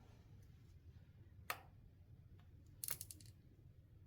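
Near silence, with a single faint click about a second and a half in and a short run of quick ticks near three seconds: a zip tie being cinched tight.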